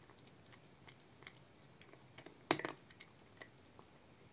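Domestic cat crunching dry kibble from a bowl: a string of small crisp crunches, with one louder burst of crunching about two and a half seconds in.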